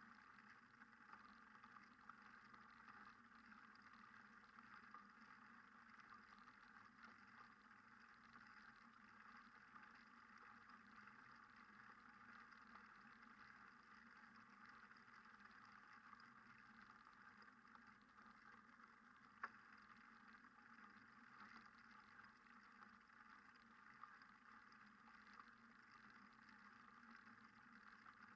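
Near silence: a faint steady hiss, with a single faint click about two-thirds of the way through.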